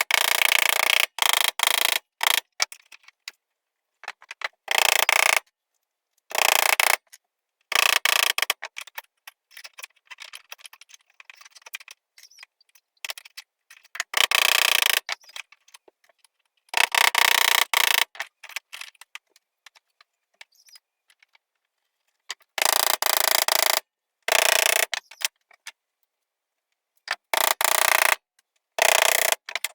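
A series of short, abruptly cut bursts of hand-tool and power-tool workshop noise, with mechanical clattering and metal clinking, separated by gaps of dead silence.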